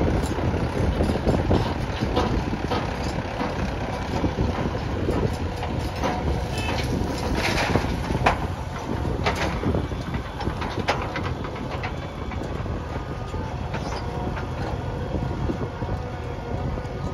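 JCB backhoe loader's diesel engine running steadily, with a few sharp knocks around the middle.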